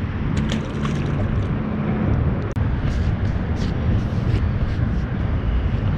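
Steady low rumble of wind buffeting the body-worn camera microphone, with light scattered rustles and clicks of a jacket sleeve brushing the camera while a fish is handled.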